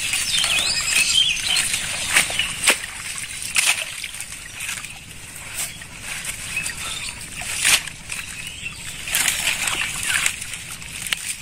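Hands sloshing and splashing through shallow muddy water and water hyacinth plants, in irregular small splashes.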